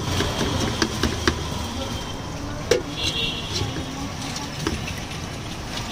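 Kitchen knife chopping red onion on a wooden cutting board: a run of sharp, irregular knocks, one of them louder a little before the middle, over a steady haze of street traffic.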